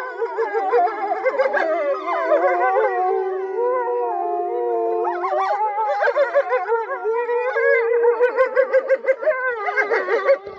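A wolf pack howling in chorus: several long howls overlap at different pitches, with choppier, warbling calls mixing in during the second half.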